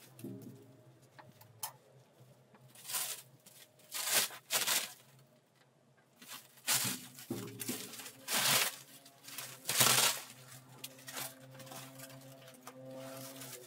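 A series of short rustling and handling noises, like material being moved about on a work table, each lasting well under a second. Soft background music comes in near the end.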